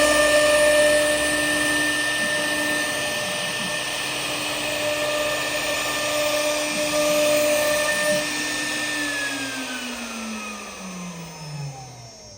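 CNC router spindle running at high speed, a steady whine over a loud hiss. About nine seconds in it is switched off and the whine falls steadily in pitch as the spindle spins down.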